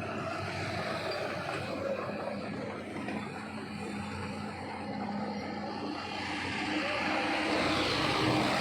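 Road traffic going by: vehicle engines running and passing, steady, getting louder near the end as a vehicle comes closer.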